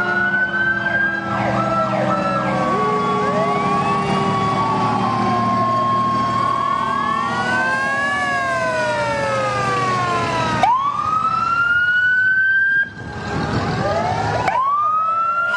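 Several antique fire trucks' sirens wailing at once, overlapping tones winding up and down in pitch, with one siren winding up sharply from low about two-thirds in and another near the end. A low, steady truck engine hum runs underneath.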